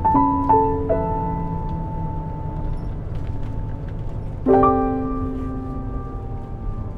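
Background piano music: a few single notes in the first second, then a fuller chord struck about four and a half seconds in and left to ring.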